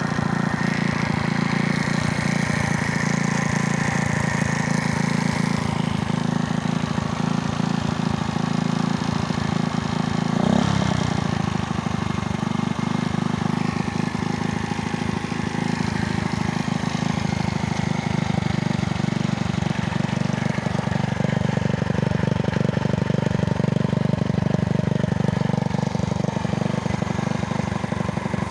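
Engine running steadily at idle with a rapid knocking in it, an unexplained extraneous knock whose cause the owner cannot identify. It is briefly louder about ten seconds in.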